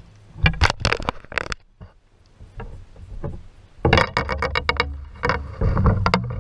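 Knocks and scrapes from gear being handled on a kayak: a short cluster about half a second in, then a denser run of quick knocks from about four seconds in.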